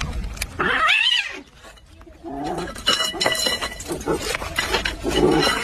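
Cat yowling and growling in several bursts, with a short lull partway through.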